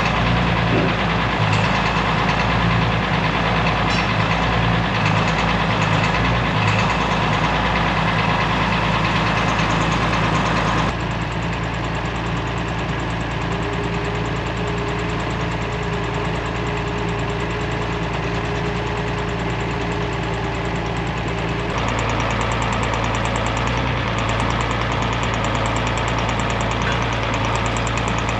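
Tractor engine running steadily at a low, even speed. The sound changes abruptly about 11 seconds in and again about 22 seconds in.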